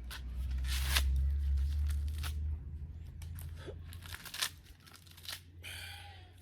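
Fresh maize husks being torn off the cobs by hand: several separate rasping tears, the loudest about a second in and again around four seconds in.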